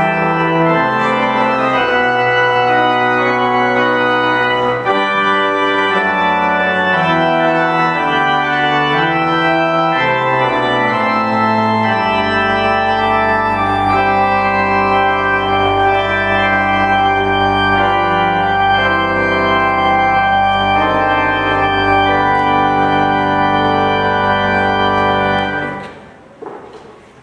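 Church organ playing slow sustained chords, with a steady low bass note held under them from about halfway. It ends near the end, the last chord dying away in the church's echo.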